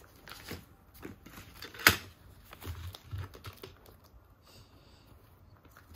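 Scattered light clicks and taps of paper sheets and plastic stamp-pad cases being handled, with one sharper click about two seconds in and a few soft thumps soon after.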